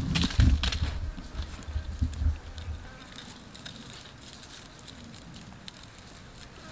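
Low knocks and bumps from hands handling charred pineapple halves on a table of sticks during the first two and a half seconds. After that come faint scattered ticks and crackles over a steady outdoor hiss.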